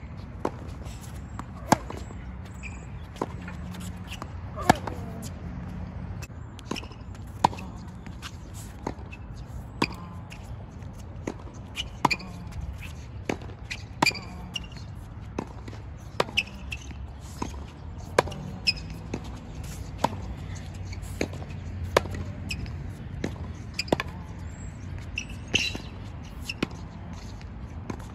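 Tennis ball struck back and forth with rackets in a volley rally at the net: a sharp pock about every second to second and a half.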